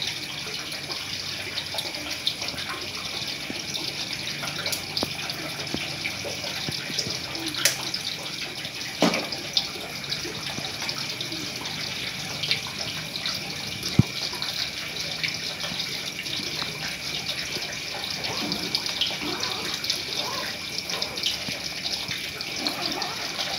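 A steady rushing hiss, like running water, with a few sharp clicks and some soft rustling as a person climbs out of a nylon dome tent.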